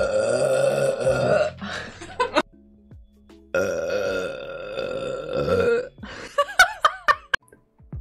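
Women burping loudly: two long drawn-out burps, one at the start and one starting about three and a half seconds in, with shorter sounds between them and a quick run of wavering, pitch-sliding sounds near the end. Faint music runs underneath.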